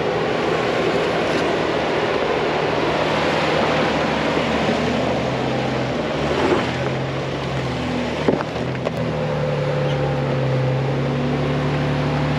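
Jeep Wrangler JK engine running low and steady as it crawls slowly over a rocky dirt trail, under a constant rushing hiss. A couple of sharp clicks come about six and eight seconds in.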